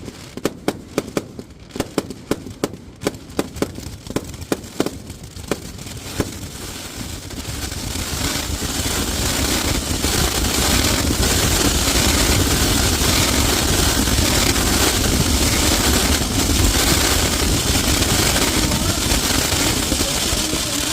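Fireworks going off at close range: a quick run of sharp bangs, about three a second, for the first six seconds, then a dense, unbroken rush of noise that builds and stays loud.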